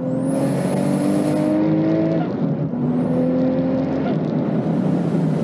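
Toyota Mk4 Supra's 2JZ straight-six at full throttle, climbing steadily in pitch through the gears with a drop at each upshift, about two seconds in and again about four seconds in. A high thin whistle rises after the shifts.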